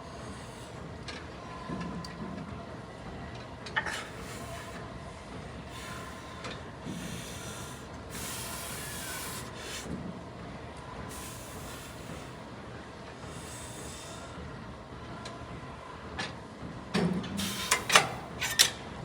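Gym noise with scattered knocks, then a cluster of sharp, loud clanks of gym equipment near the end.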